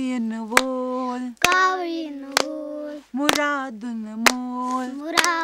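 A woman and children sing a Kashmiri children's rhyme in long held notes, clapping hands in time about once a second, six claps in all.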